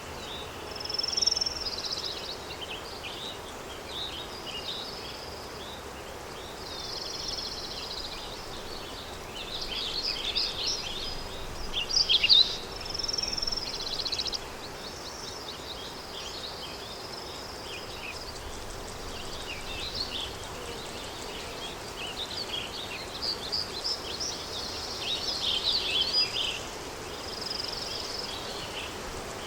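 Countryside daytime ambience: small songbirds chirping and warbling on and off over a steady rush of wind. The loudest chirps come near the middle.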